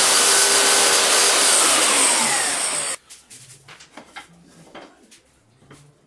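Table saw running, its pitch sliding down as the blade spins down, cut off abruptly about halfway through. Then a few light wooden knocks as mitred picture-frame moulding pieces are handled on the saw table.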